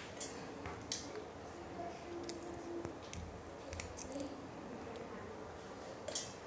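Small green cardamom pods being peeled open by hand over a steel mixer-grinder jar: a few faint, sharp cracks and clicks as the husks split and the seeds drop in, the loudest near the end.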